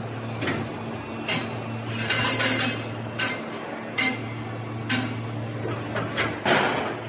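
PET preform injection molding machine running through its cycle as the mold opens: a steady low hum with repeated metallic clanks and clicks, a quick run of light clinks about two seconds in, and a short hiss-like rush about six and a half seconds in.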